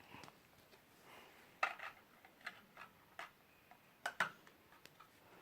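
LEGO plastic pieces clicking against each other as they are handled and pressed together: a string of irregular, sharp clicks, the loudest about one and a half seconds in and a close pair about four seconds in.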